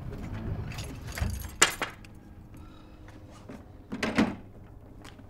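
A key rattling in a brass doorknob lock, with a series of sharp clicks and one loud click of the lock about a second and a half in. A duller knock follows about four seconds in.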